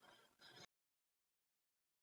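Near silence: faint room noise for the first moment, then it cuts off suddenly to dead silence.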